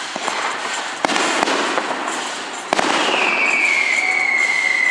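Fireworks going off: two sharp bangs about a second and three-quarters apart amid crackling, followed by a long whistle that falls slightly in pitch.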